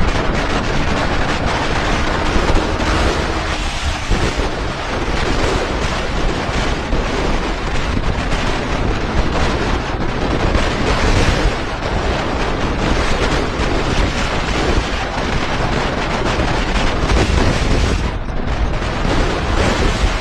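Loud wind noise buffeting the microphone at riding speed, with no clear engine note rising above it.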